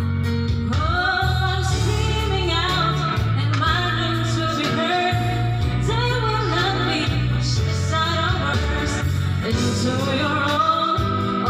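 A woman singing through a corded microphone over recorded backing music, her amplified voice carrying a melody of long held and sliding notes.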